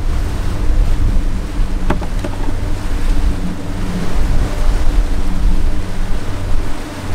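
Boat engine running steadily at trolling speed, with water rushing in the wake and wind buffeting the microphone. A single short click about two seconds in.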